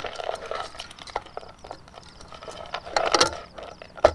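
Hand squeezing and scooping cooked instant noodles in a metal camping pot: irregular rustling and crackling with small clicks, thickest about three seconds in, and a sharp click near the end. A faint insect chirp repeats steadily behind it.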